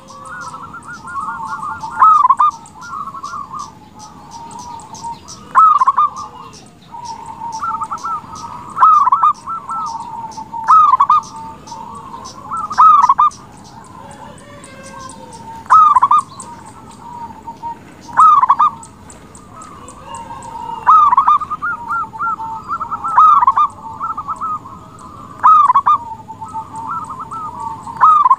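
Zebra dove (perkutut) cooing its song: a loud rolling coo repeated about every two to three seconds, with softer trilling coos in between.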